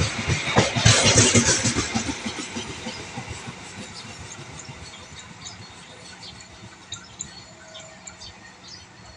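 A train passing, its wheels clacking rhythmically over the rail joints, loud at first and dying away over the first few seconds as it moves off, leaving a faint low rumble with scattered light clicks.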